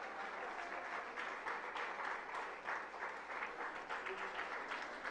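Audience clapping steadily, faint and even.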